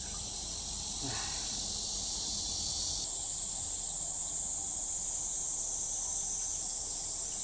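Steady, high-pitched insect chorus, its tone shifting slightly about three seconds in.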